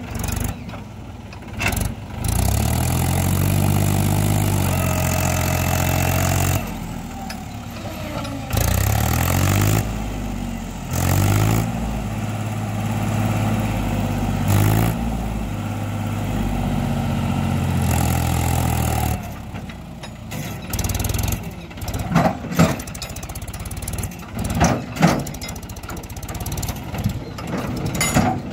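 Mahindra 265 DI tractor's three-cylinder diesel engine running, its speed raised and eased several times as the hydraulic lift tips a loaded trailer. In the last third the engine falls quieter and a few sharp knocks come.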